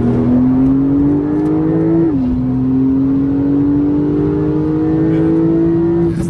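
Porsche 911 Turbo S's twin-turbo flat-six heard from inside the cabin while the car accelerates. The engine note climbs, drops at a gearshift about two seconds in, then climbs again more slowly.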